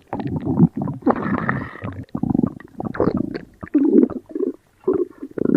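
Stomach growling and gurgling in uneven, pitched bursts with brief pauses between them.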